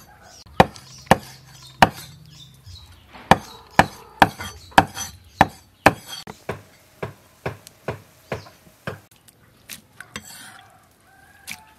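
Cleaver chopping cooked pork offal on a wooden chopping block: a run of sharp chops about two a second, softer after about six seconds, with a few spaced chops near the end.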